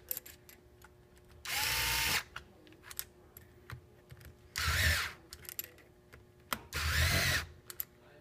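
Cordless electric screwdriver running in three short bursts, driving the screws that pull the clipping head tight onto an Oster Clipmaster clipper, with a few light clicks between the bursts.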